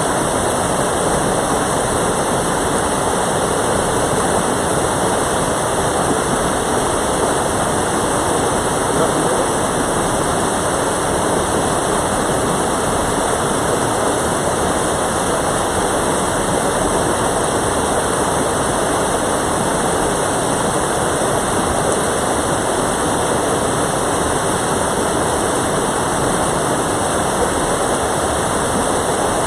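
Mountain valley stream rushing, a loud, steady, unbroken sound of flowing water.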